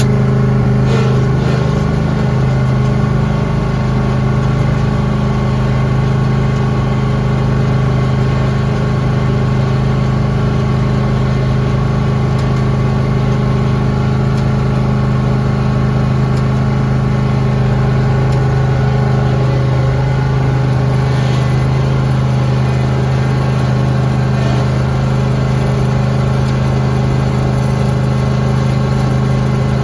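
Lawn tractor engine running steadily at constant speed, its pitch holding even throughout.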